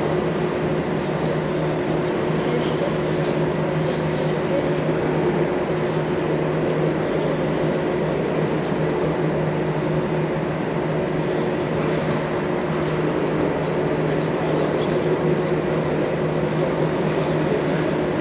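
Steady sports-hall background noise: a constant low hum under an even wash of room noise, with faint scattered clicks.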